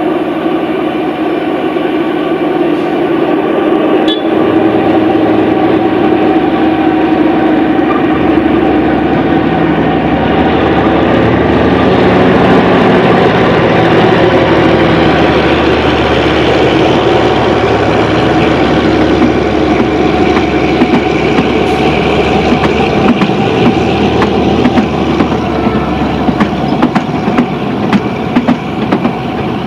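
ZDM-3 narrow-gauge diesel locomotive's engine running under power as it slowly hauls its train past, the engine note stepping up a few seconds in and growing louder toward the middle. Near the end sharp clicks of wheels over rail joints set in as the coaches roll by.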